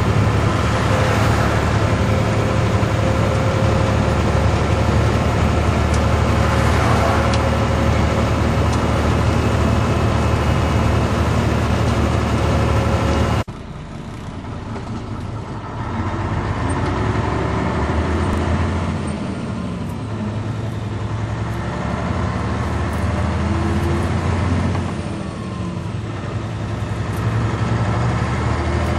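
Pegaso 1183 truck's 260 hp diesel engine heard from inside the cab while driving: a steady drone for the first half. After a sudden cut about halfway, the engine pitch rises and falls several times as the driver works the Fuller manual gearbox.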